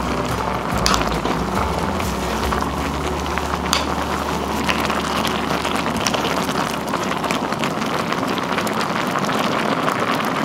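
Broth and rice boiling in an earthenware clay pot, a steady bubbling with scattered small pops and crackles.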